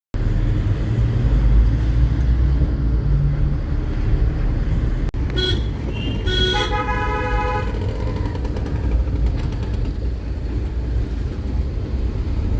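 Road vehicle running, with a steady low engine and road rumble. A horn sounds twice about five seconds in: a short toot, then a longer blast of about a second and a half.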